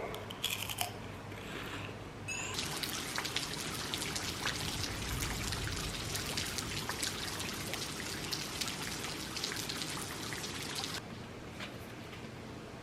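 Rain falling steadily, a dense patter of many small drops. It comes in about two seconds in and cuts off suddenly near the end.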